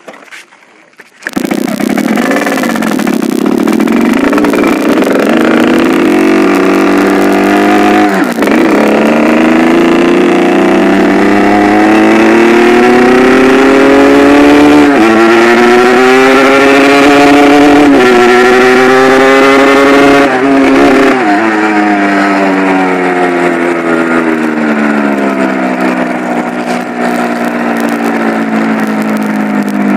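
Yamaha RX King two-stroke single-cylinder motorcycle engine under way: the note climbs through the gears with a brief dip at each of three or four shifts, then falls away steadily as the bike slows in the last third. Its carburettor has just been tuned.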